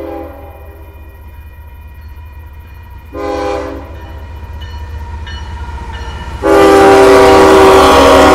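Union Pacific diesel locomotive's multi-tone air horn sounding the grade-crossing signal as the train nears the crossing. A long blast ends right at the start, a short blast comes about three seconds in, and a long, much louder blast begins about six and a half seconds in as the locomotive reaches the crossing. A low steady rumble runs underneath.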